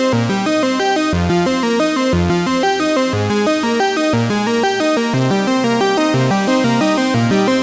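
Background electronic music: a quick, steady run of synthesizer notes over a repeating bass line.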